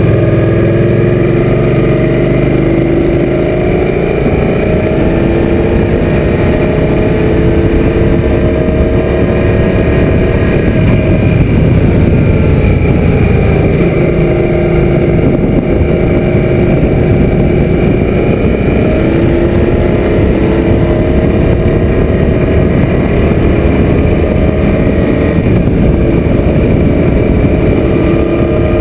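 Suzuki M800's V-twin engine running on the move, its pitch rising and falling again and again as the throttle is rolled on and off, under heavy wind rush on the bike-mounted camera.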